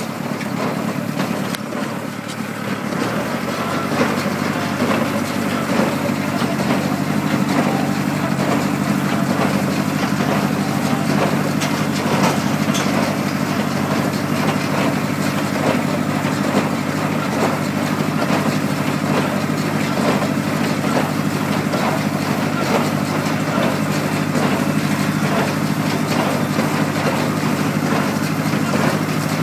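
A tractor engine running steadily while hay baling machinery works, with a fast, regular clatter over the engine's hum. The sound builds over the first few seconds, then holds steady.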